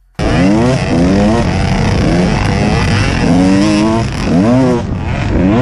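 Dirt bike engine heard from the rider's own bike, revving up and falling back again and again as the throttle is worked along the trail.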